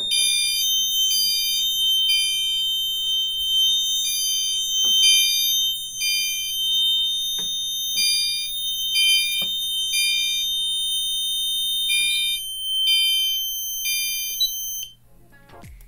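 Two fire alarm horn strobes sounding together. One beeps the temporal code-3 evacuation pattern (three beeps, a pause, repeating), and the other holds a continuous, annoying high-pitched tone. Both cut off together about a second before the end, with a few faint button clicks in between.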